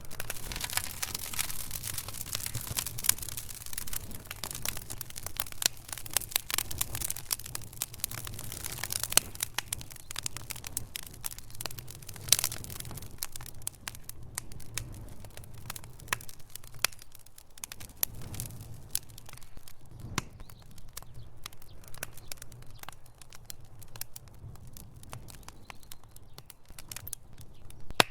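Wood fire in a fireplace crackling, with dense irregular snaps and a few louder pops over a low rumble of the burning logs.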